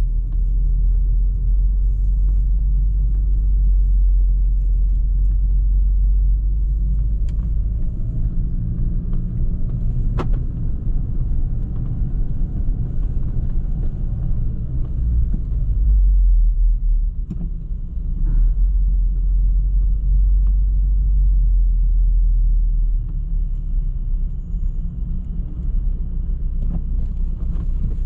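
Volkswagen Golf R Mk7.5 driving slowly, its turbocharged 2.0-litre four-cylinder engine running with a steady low rumble. A few faint ticks sound around the middle.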